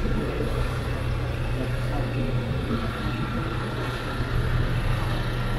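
City street ambience: a vehicle engine running steadily in traffic, with people's voices in the background.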